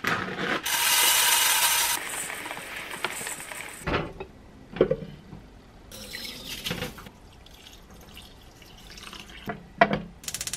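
Rice grains poured into a stainless steel bowl and running water splashing as the rice is rinsed. The rice and water are then tipped into a pot, and a couple of sharp knocks near the end as a wooden lid is set on it.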